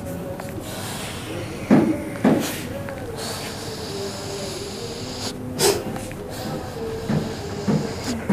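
Short, forceful breath noises from a person, heard several times: two strong ones about two seconds in and more near the end, over a steady low hum.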